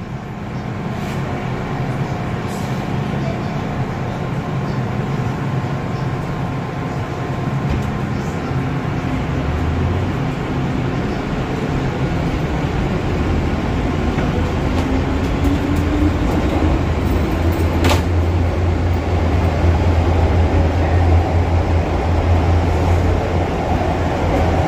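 First-generation MTR M-Train electric multiple unit heard from inside a car as it gathers speed. A rumble of wheels on rail grows louder, and a motor whine rises in pitch from about a third of the way in, with a single sharp click about three quarters of the way through.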